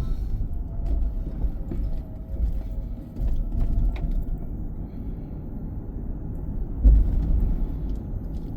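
Car road noise while driving: a steady low rumble of tyres and engine, rising about three seconds in, with a loud low thump near the seven-second mark.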